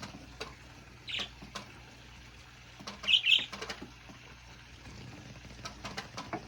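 Pet budgies giving short high chirps, the loudest a quick double chirp about three seconds in, among scattered faint taps.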